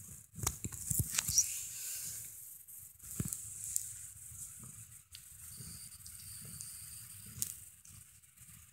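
Soft rustling against a blanket with scattered light taps and clicks as a cat paws and bats at a dangling string.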